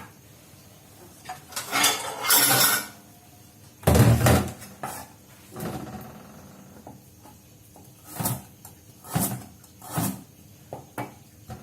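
Kitchen handling sounds: pots, dishes and utensils clattering and clinking, with a scraping rustle early on, one heavy knock about four seconds in, and several sharp clinks in the second half.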